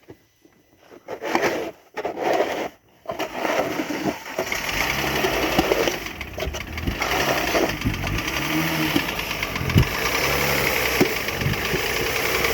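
Mercedes M272 V6 engine starting: short spells of cranking, then it catches about three seconds in and keeps running with a knock now and then. The knock comes from badly scored cylinder bores, with oil standing in a cylinder.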